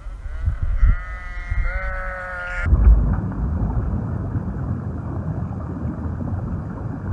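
An animal bleating about three times, each call rising at its start, over low wind rumble on the microphone. Then an abrupt cut, about two and a half seconds in, to a rough, rumbling noise that continues.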